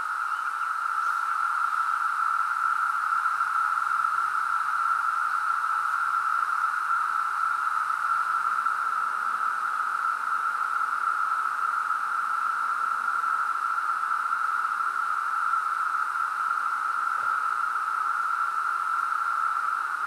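Chorus of 17-year periodical cicadas: a steady, unbroken drone at one middle pitch.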